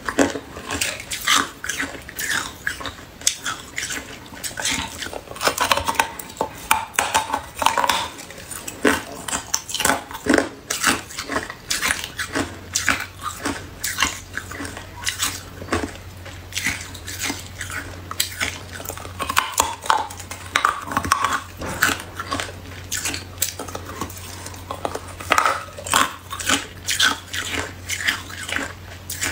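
Hard clear ice being chewed and crunched in the mouth: a dense run of sharp, irregular cracks and crunches.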